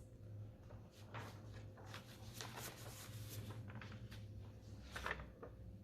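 Quiet room tone with a steady low hum and faint, irregular rustling or handling noises, most of them in the first half and one more near the end.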